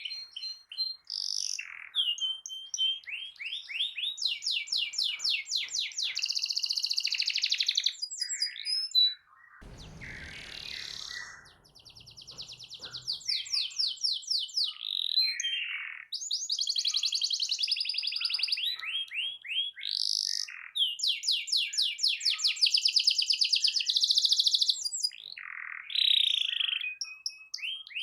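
Domestic canary singing a long, loud song of fast rolling trills and rapid repeated notes, with high whistled glides between phrases. The song breaks off briefly about ten seconds in, where a low muffled noise is heard, then resumes.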